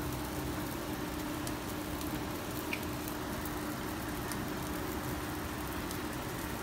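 Steady rushing noise with a constant low hum from a commercial gas grill burning with charcoal as yakitori skewers cook. A few faint crackles and ticks are scattered through it.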